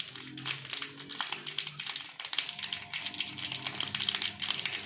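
A foil spice packet crinkling and rustling in the hand as powdered fish masala is spooned out of it, with many small irregular crackles.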